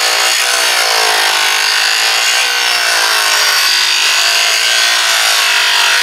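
Corded circular saw fitted with a 7-inch abrasive metal-cutting wheel, running under load as it cuts through a metal shower door. It makes a loud, steady scream whose pitch wavers slightly as the blade works through the cut.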